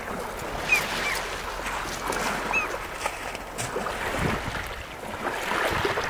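Small waves washing up and drawing back over a pebble beach, a rushing hiss that swells and eases.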